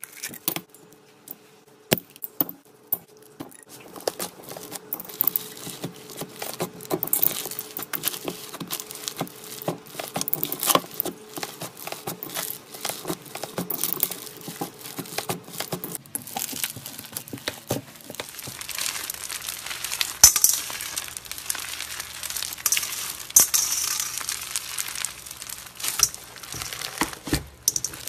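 Hands squeezing and kneading slime: a dense, irregular run of small sticky clicks, pops and crackles. It turns brighter and more crackly about two-thirds of the way through.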